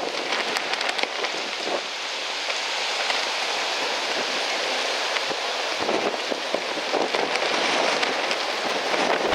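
Strong gusty wind rushing through trees, a steady hiss with little low rumble and a few faint ticks.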